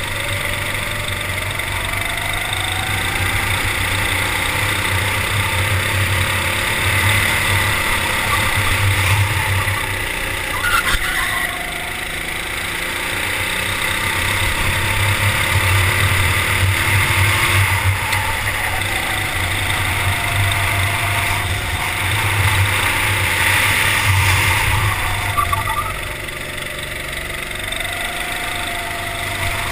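Go-kart engine running at speed around a lap, its pitch rising on the straights and falling into the corners again and again. The level drops for a while near the end as the kart slows.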